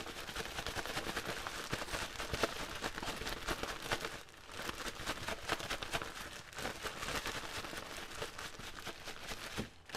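Plastic gallon freezer bag crinkling and rustling as raw chicken drumsticks and a dry seasoning mix are shaken hard inside it by hand. The shaking is a fast, continuous rattle with a brief lull about four seconds in.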